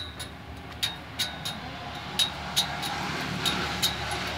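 Hand file stroking the teeth of a steel bandsaw-mill blade to sharpen it, about two strokes a second, each with a sharp metallic click and a brief ring from the blade. A steady low engine hum runs underneath and grows louder in the second half.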